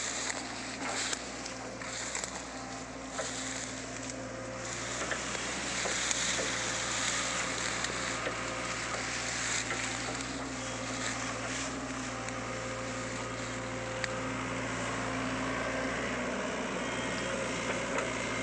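Sany SY55C mini excavator's diesel engine running steadily as the machine works, lifting felled palm trunks. It gets a little louder about five seconds in.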